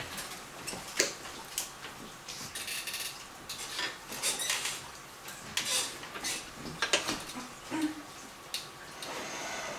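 Irregular clicks, clinks and short scrapes of hard objects being handled, with sharp knocks about a second in and near seven seconds.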